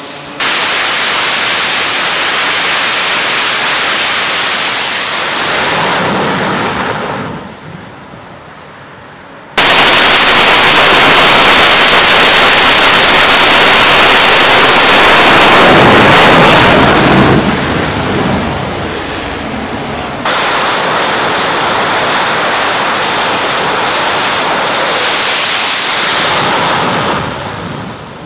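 F/A-18 jet engines at full power during night catapult launches from a carrier deck: three long stretches of loud jet noise, each starting suddenly and fading away as the jet leaves.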